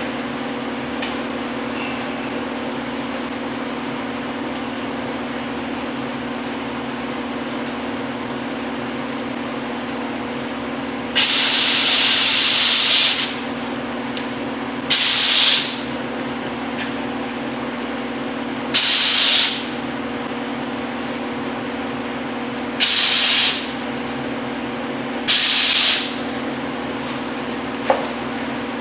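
Gravity-feed paint spray gun loaded with 2K high-build primer, triggered in five short bursts of hiss, the first lasting about two seconds and the rest under a second each. The gun is being set back up after it was turned down for spraying inside a door jamb.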